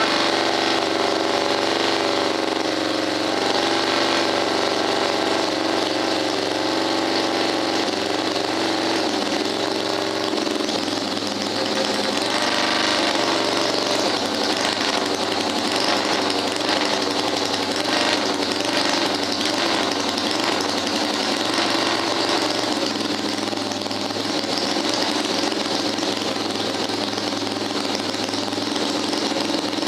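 Vintage Fuji two-cylinder auto-race engine running, its revs shifting a few times. It ran poorly, which the uploader puts down to an oil leak.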